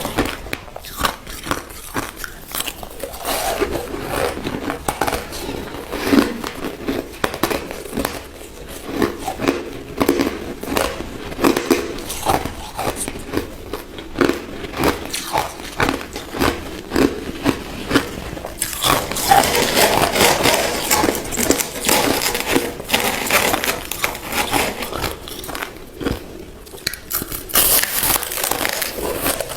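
Crushed ice being bitten and chewed close to the microphone, with rapid irregular crunching and crackling throughout. The crunching grows louder and denser for several seconds a little past the middle.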